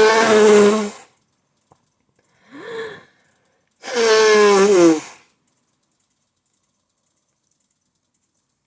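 A person sneezing in a fit: a loud voiced sneeze at the start, a short rising 'ah' as breath is drawn in about two and a half seconds in, then a second loud, drawn-out sneeze falling in pitch at about four seconds.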